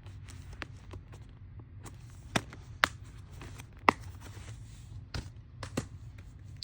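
Scattered sharp clicks and taps of plastic Blu-ray cases being handled, about half a dozen, over a low steady hum.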